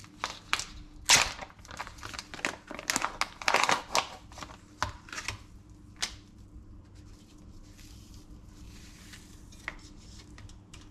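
Plastic packaging of sliced turkey ham crinkling and tearing open, a dense run of sharp crackles through the first five seconds. After that come only a few soft rustles and clicks as the slices are peeled out.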